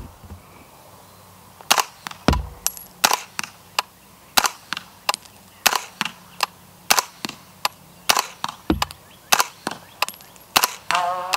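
Spikes Tactical Brown Recluse integrally suppressed 9mm carbine firing a steady string of shots, roughly one a second, each suppressed report followed by a fainter second crack. It is firing subsonic 9mm rounds, so there is no supersonic crack.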